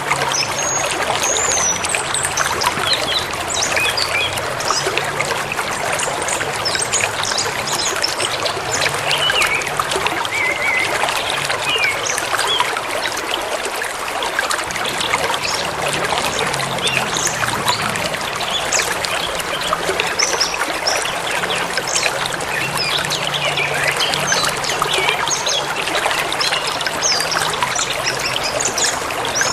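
A forest stream or river babbling and trickling steadily, with small birds chirping and whistling intermittently over it.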